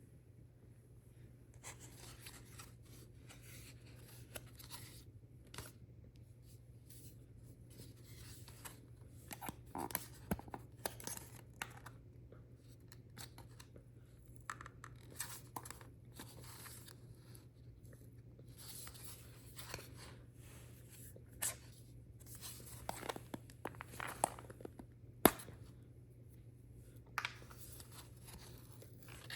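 Packaging being opened by hand: paper and plastic tearing and crinkling, with scattered taps and clicks as the box and its contents are handled, over a steady low hum. The sharpest click comes near the end.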